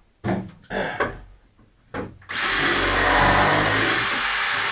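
Power drill on its screwdriver setting driving a small lag bolt into wood, running steadily with a high motor whine from a bit over two seconds in, after a few brief sounds.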